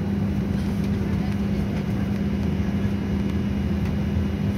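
Steady drone inside an airliner's cabin before departure: air rushing from the ventilation with a constant low hum.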